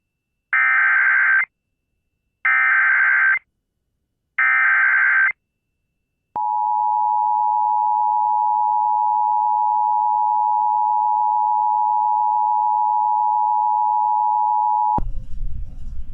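Emergency Alert System activation broadcast over AM radio. Three bursts of about a second each of SAME header data, a harsh warbling digital screech, are followed by a short gap. Then the steady two-tone EAS attention signal holds for about nine seconds and cuts off suddenly, marking the relay of a severe thunderstorm warning.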